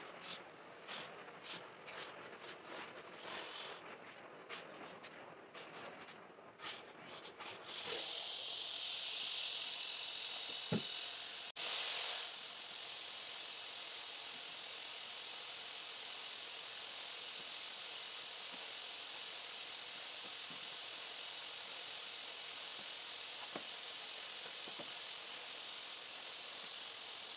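Scattered clicks and knocks, then about eight seconds in a loud hiss starts and after a few seconds settles into a steady rushing hiss: a hot-water carpet extraction wand spraying and vacuuming a rug.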